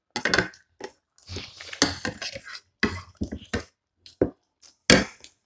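Close-up eating sounds: chewing and mouth noises, with spoons and forks clinking and scraping on ceramic plates, in short irregular bursts and sharp clicks.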